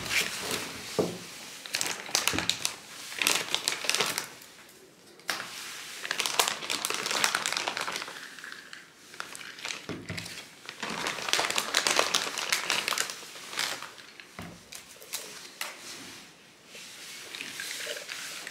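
Thin clear plastic carry bag crinkling and rustling in bursts as iced coffee cups are handled inside it and lifted out, with a few soft knocks of the plastic cups set down on a wooden desk.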